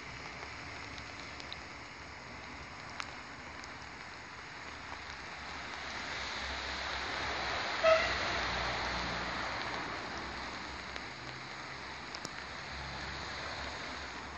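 Steady hiss of rain mixed with the running noise of a regional train pulling away, swelling to a peak midway and easing off. One short pitched toot about eight seconds in is the loudest sound.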